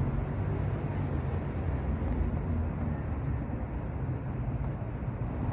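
A car engine idling steadily, a low rumble.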